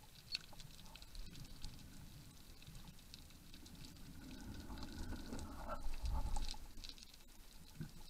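Underwater ambience heard through a camera's waterproof housing: scattered faint crackling clicks, with a low rumble that swells from the middle and fades near the end.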